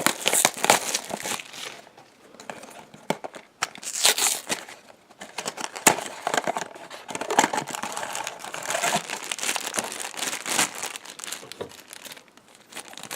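A Funko Mystery Minis blind box being opened by hand: cardboard and the wrapper inside tearing, rustling and crinkling irregularly, with sharp crackles.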